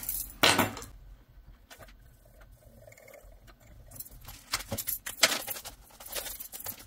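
Paper dollar bills and a plastic cash-binder pouch being handled: a short rustle near the start, a quiet stretch, then a run of crisp crinkles and small clicks over the last three seconds.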